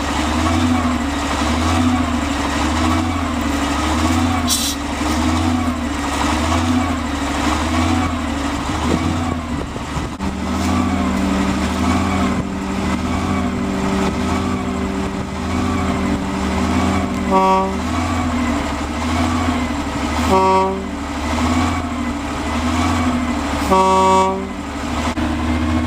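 Vintage Plymouth industrial locomotive's chain-driven engine idling with a steady, rhythmic pulse, freshly started with the choke on. A steady hum joins about ten seconds in, and near the end the horn gives three short toots.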